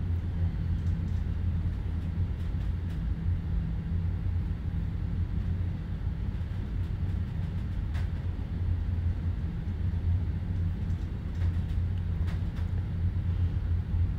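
Steady low drone of ship's engine-room machinery, with a few faint clicks as metal valve parts are handled.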